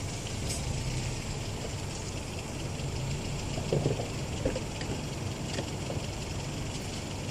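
Toyota Yaris 1.0 engine idling steadily, with no revving.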